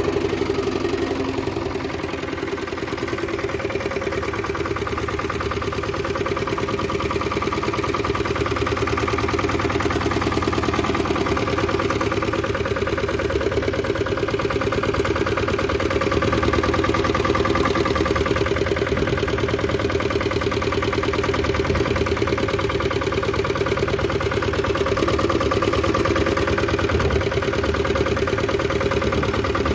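Lombardini LDA 96 single-cylinder air-cooled diesel engine of a Goldoni Export 16 HP motocultivator running steadily, a fast, even beat of firing pulses.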